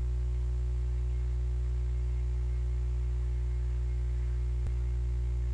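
Steady low electrical mains hum on the recording, with one faint click near the end.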